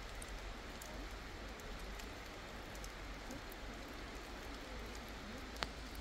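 Steady rain falling, an even patter with faint scattered drop ticks, and one sharp tick near the end.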